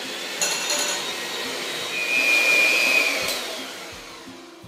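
Electric mixer running, beating eggs and sugar. The motor noise rises to a high, steady whine about two seconds in, then fades away near the end.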